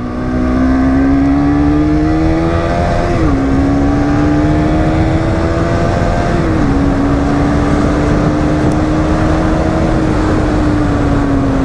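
Bajaj Pulsar NS200's single-cylinder engine pulling under acceleration, its note climbing and dropping back twice as the rider shifts up, about three seconds in and again about six and a half seconds in, then holding steady and easing off near the end. The rider says the bike goes flat around 7,000 rpm in fourth and fifth gear and thinks the carburettor needs changing.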